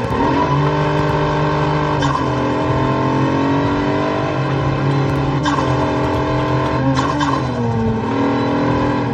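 A car engine held at high revs with the tyres squealing, as in a burnout. The pitch sags and climbs back three times.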